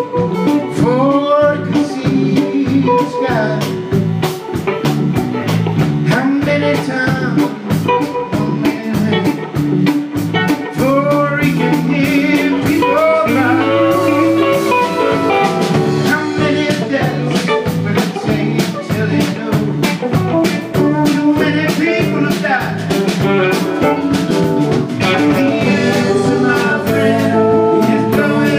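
Live electric band playing, with electric guitars, keyboard, bass and drums; a lead line glides up in pitch several times over the steady drum beat.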